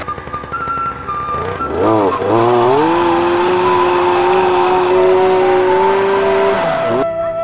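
Small petrol engine of an olive-harvesting pole shaker running unevenly, then revving up about two seconds in and held at high revs for about four seconds before dropping back near the end.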